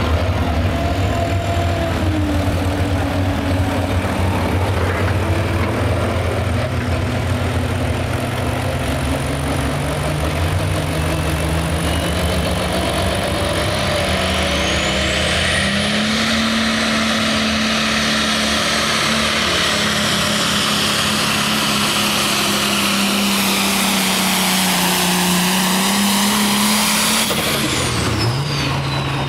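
Diesel engine of an International Light Pro pulling tractor running steadily, then throttled up about halfway in as it pulls the sled, engine pitch climbing with a high turbo whine rising over it and held at full throttle. Near the end the throttle shuts and the turbo whine falls away.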